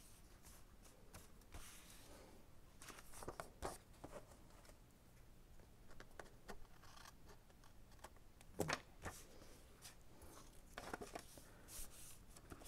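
Faint paper handling: hands smoothing and lifting a paper envelope, with soft rustles and brief taps, a few slightly louder ones scattered through.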